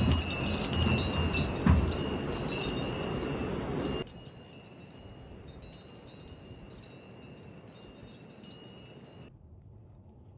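Metal wind chimes ringing with many overlapping strikes, over a low rush of noise. The level drops abruptly about four seconds in, the chimes go on more faintly, then stop suddenly about nine seconds in.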